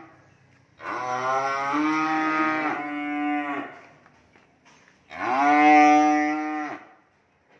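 Young beef cattle in a pen mooing: a long moo about a second in, overlapped by another animal's rising call, then a louder moo about five seconds in.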